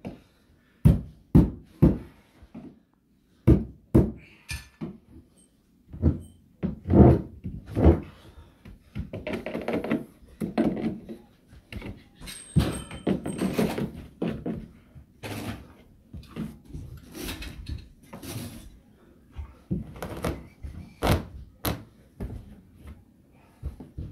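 Irregular sharp hammer blows on carpet over a wooden stair while stair carpet is fastened down, with a stretch of scuffing and rustling of carpet being worked in the middle before the blows resume.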